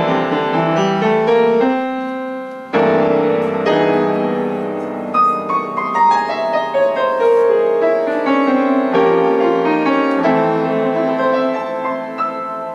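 Background piano music, a melody of single notes and chords moving along at an unhurried pace.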